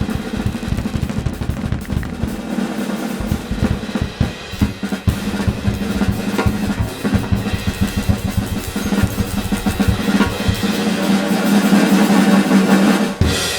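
Jazz drumming on a drum kit, fast and busy with rolls, over a held low note, growing louder and cutting off abruptly near the end.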